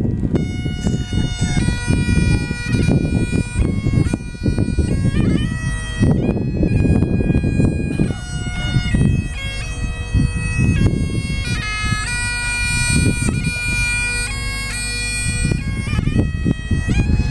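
Highland bagpipes playing a tune, the melody stepping from note to note over steady drones. The chanter comes in about half a second in. A gusty low rumble of wind on the microphone runs underneath.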